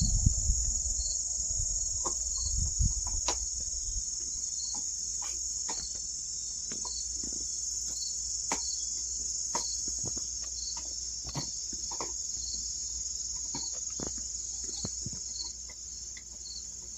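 Steady high-pitched insect chorus, crickets, with a regular chirp a little more than once a second over the continuous drone. A low rumble runs underneath.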